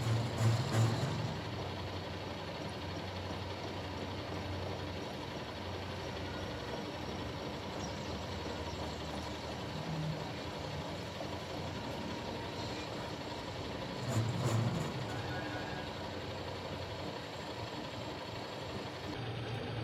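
Steady mechanical running noise, like a machine or engine turning over, with brief louder low swells about a second in and again about fourteen seconds in.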